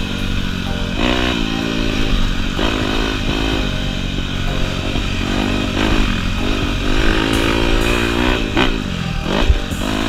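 Dirt bike engine being ridden hard, its pitch climbing and dropping back again and again as the throttle is opened and shut, with several sharp dips and re-climbs.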